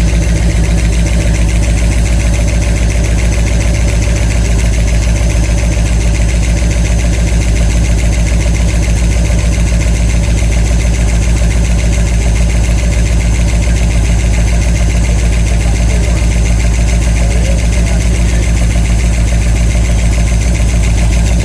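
A 1989 Ford E150's 460 big-block V8 idling steadily with fine, even pulsing. The tick or knock is still there after new lifters, which the owner takes as a bottom-end problem needing new pistons, rods and bearings.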